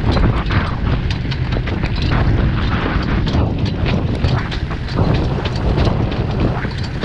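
Wind buffeting the microphone of a camera on a moving horse-drawn jog cart, over the steady rumble of the cart rolling on a gravel road, with many small irregular clicks and rattles from the cart and hooves.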